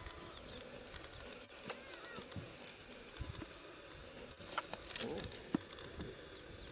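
Outdoor bush ambience: a steady insect drone with a few faint bird chirps and occasional sharp clicks.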